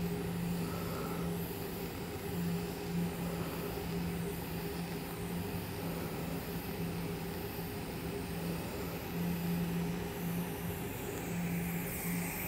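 TIG welding arc from an Everlast Powertig 250EX burning steadily on a stainless steel pipe cap at 175 amps while filler rod is fed into the puddle: a continuous buzz with hiss.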